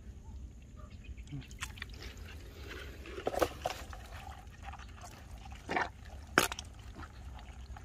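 A hand digging into a muddy field-crab burrow in a drained rice paddy: wet sloshing and splashing of mud and water, with a few sharper smacks, the loudest about three and six seconds in.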